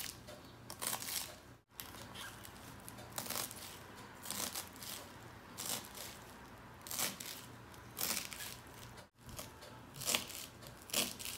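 Knife chopping fresh cilantro (green coriander) on a wooden cutting board: irregular crisp chops of the blade through the leaves and stems onto the wood.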